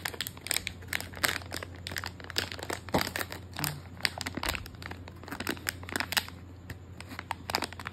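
Miniso foil blind-box wrapper crinkling in irregular crackles as a child's hands grip and pull at it.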